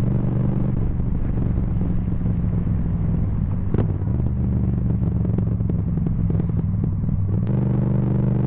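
Yamaha MT-07's parallel-twin engine running through a full Akrapovic titanium exhaust, loud enough to distort the microphone. It holds a steady note, which briefly shifts about four seconds in and again near the end.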